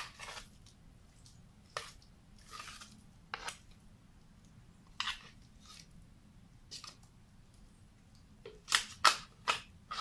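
Coarsely ground chickpea falafel mixture being scraped and shaken out of a plastic blender jar into a glass bowl: a series of short, separate scrapes and taps. Three louder knocks come close together near the end.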